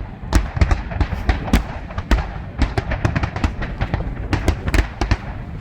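Fireworks going off in rapid succession: many sharp bangs and crackles overlapping, several a second, over a low rumble.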